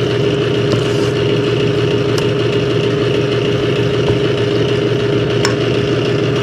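Steady machine hum with a constant tone, unchanging throughout. A few faint clinks of a metal spoon against a stainless steel bowl as dough is mixed.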